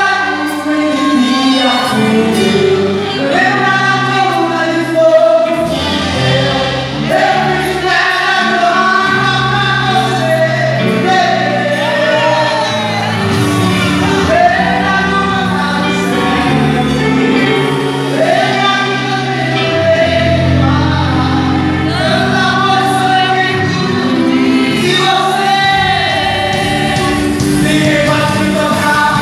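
Live gospel worship song: singing, with several voices, over a keyboard and band accompaniment with steady held bass notes.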